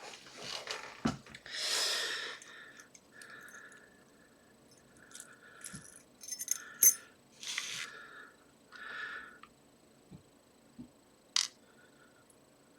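Small metal parts of an Abus padlock being taken apart by hand: intermittent clicks, scrapes and light rattles of lock pins, plug and plug follower under pinning tweezers, in short separate bursts.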